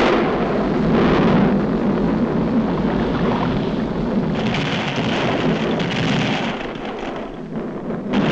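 Cartoon volcano eruption sound effect: a continuous low rumble with hiss, which grows brighter about halfway through and eases off near the end.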